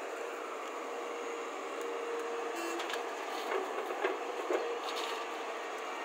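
Hyundai 215 crawler excavator running steadily, its engine and hydraulics holding a steady whining tone as it swings a loaded bucket over a dump truck. A few sharp knocks come about halfway through as the soil is dumped into the truck's body.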